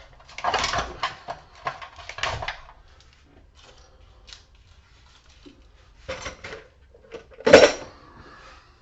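Metal parts clanking and scraping as a stuck piece of scrap is worked loose by hand, in several bursts. The loudest clank comes near the end.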